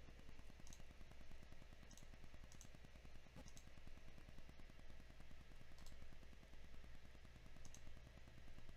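Faint computer mouse clicks, about six scattered through, over a steady low hum.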